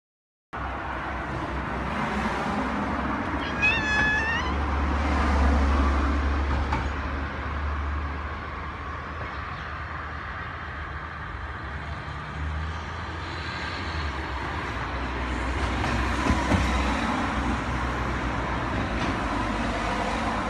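Steady low rumble of street traffic, with a cat meowing once, briefly, about four seconds in.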